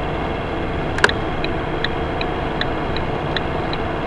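Turn-signal flasher ticking evenly, about two and a half ticks a second, starting with a click about a second in. Underneath is a steady drone of engine and road noise inside the cab.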